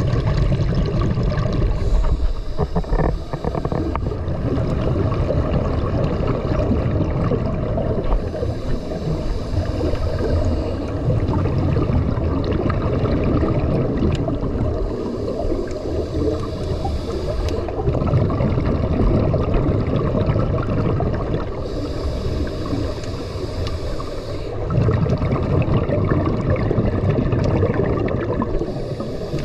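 A scuba diver breathing through a regulator underwater: a hiss on each inhale alternates with a low bubbling rumble of exhaled air, in slow, even breaths about every six or seven seconds.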